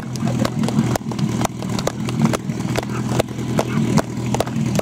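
Small engine of a portable fire pump running steadily at idle, a low hum with irregular short clicks over it.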